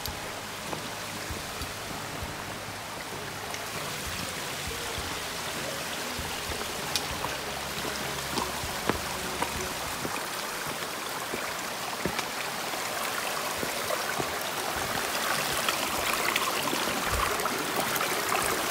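Small mountain creek running over rocks, growing louder near the end as it is approached, with a few sharp clicks.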